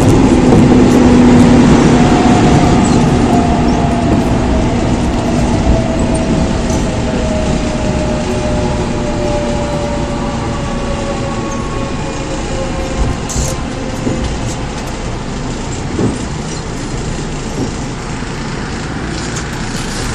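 Running sound inside a Seoul Metro Line 4 4000-series train with Mitsubishi GTO VVVF drive. Over the rumble of the running train, the traction inverter's whine slides slowly down in pitch over about twelve seconds as the train slows, and the sound gradually gets quieter.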